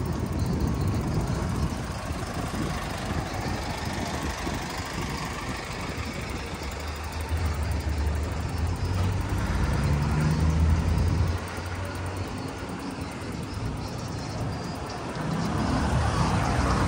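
Street traffic: a motor vehicle's engine running, loudest between about seven and eleven seconds in, then dropping off suddenly before swelling again near the end.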